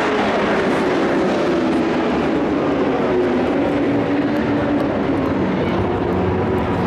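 Dirt-track race trucks' engines running hard around the oval in a steady, loud drone, the pitch sliding up and down as trucks go by.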